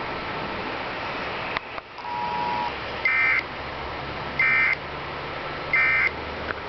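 Emergency Alert System end-of-message data bursts: three short, identical warbling digital chirps about 1.3 s apart, each louder than the rest. This is the SAME code that closes the broadcast alert. Before them, about two seconds in, comes a brief two-tone beep, all over a steady static hiss.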